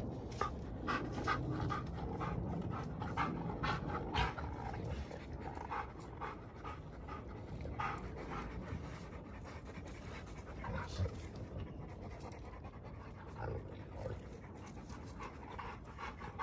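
Giant schnauzers panting hard as they wrestle, with short sharp clicks and scuffles through it, most frequent in the first few seconds.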